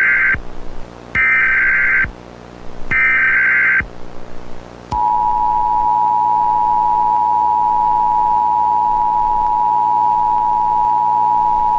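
Emergency Alert System tones: the tail of one burst and then two more bursts of SAME header data, each a harsh buzzing screech about a second long. About five seconds in, the EAS attention signal starts, a steady two-tone beep held without a break.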